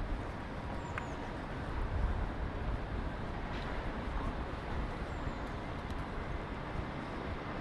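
City street ambience: a steady wash of traffic and street noise with a low rumble, with a few faint clicks and two short high chirps, about a second in and again about five seconds in.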